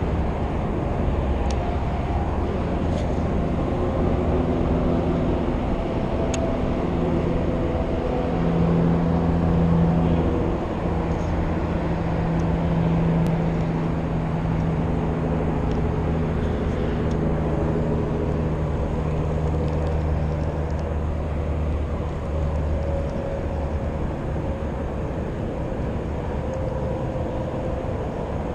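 Steady low engine drone with several held tones that drift slowly, a little louder about eight to ten seconds in. A few faint, light clicks sit on top.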